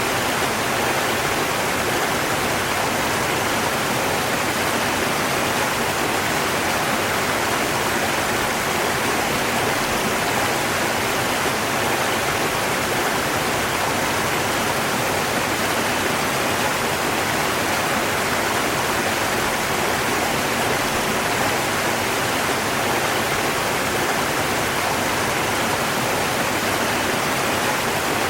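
River water rushing steadily, an even, unchanging hiss.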